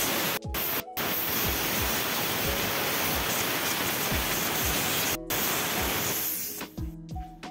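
Steam cleaner jetting steam from its nozzle along a window frame track: a loud, steady hiss that breaks off briefly three times and fades out near the end, with background music underneath that comes to the fore as the hiss stops.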